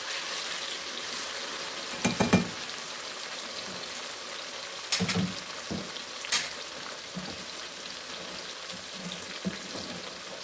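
Steamed beef pieces frying crisp in hot oil in a black karahi, a steady sizzle. A few knocks and clinks of utensils against the pans break in, the loudest about two seconds in.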